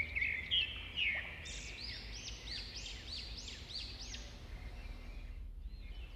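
A bird singing: a run of quick repeated rising-and-falling chirps, about three a second, from about one and a half seconds in until near four and a half seconds, over a low steady hum.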